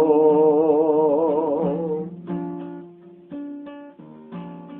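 A song: a man's voice holds a long sung note with a wavering vibrato that fades out about two seconds in, then acoustic guitar plucks single notes about once a second.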